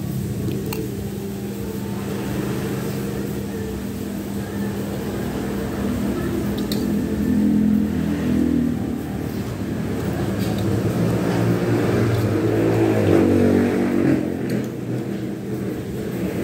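A steady low motor rumble that swells twice, with a few light clinks of a fork and spoon against a metal plate.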